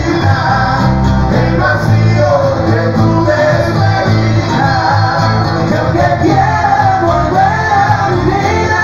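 Live band playing loud amplified music: electric bass and guitar over a steady beat, with men singing the melody.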